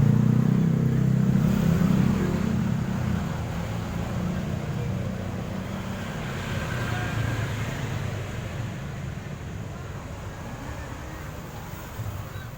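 Low engine sound of a motor vehicle, loudest in the first couple of seconds and then fading away.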